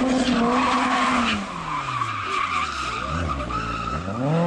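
Rally car engine held at high revs, then the revs sink away from about a second in and climb steeply again near the end as the car accelerates, with a steady rough noise of tyres on tarmac underneath.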